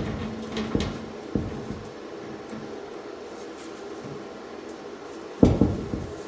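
Knocks and clunks of steel parts being handled and clamped, a few light ones in the first second and a half and a louder cluster of clunks near the end, over a steady low hum.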